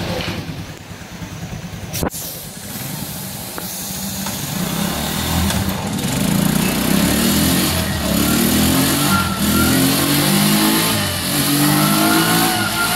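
Motorcycle engine revving up on a chassis dynamometer's rollers during a top-speed test, its pitch climbing in repeated steps as it accelerates. There is a sharp click about two seconds in, and a thin whine rises in pitch above the engine in the second half.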